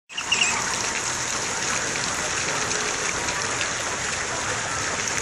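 Splash-pad ground water jets spraying and splattering onto the pad surface, a steady rush of water.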